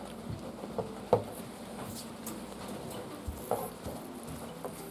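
Puppy playing with a spiky brush on a fabric dog bed: scattered soft knocks and scuffles from paws, mouth and brush, several in a few seconds.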